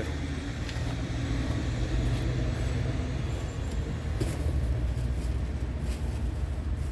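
Steady low rumble of a motor vehicle engine, with a couple of faint knocks.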